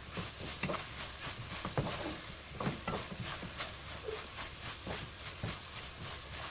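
A wooden spatula stirring and tossing garlic scapes and small dried anchovies in a sticky chili-paste sauce in a coated pan, giving irregular scrapes and soft knocks, two or three a second.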